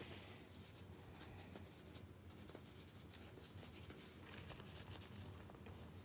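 Faint rustling and soft crinkles of paper tags and journal pages being handled and turned.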